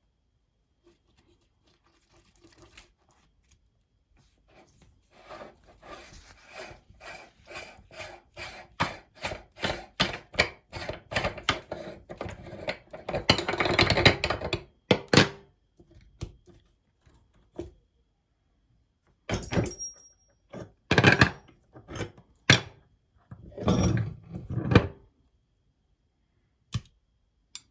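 Meat grinder clunking rhythmically as it is worked, about two knocks a second, growing louder and crowding together near the middle, then a few separate heavy thuds.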